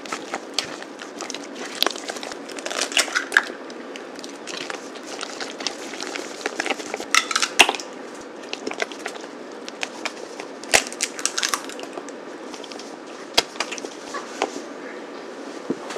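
Silicone spatula stirring and folding thick kabocha squash cheesecake batter in a glass bowl: irregular wet squelches and scrapes, with sharp clicks and a few knocks as the spatula meets the glass.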